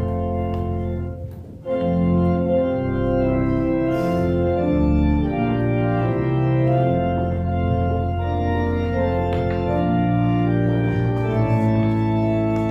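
Church organ playing slow, sustained chords, with a short break about a second and a half in before the next phrase begins.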